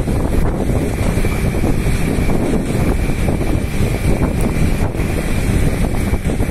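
Wind buffeting the microphone: a loud, steady rumble with no break.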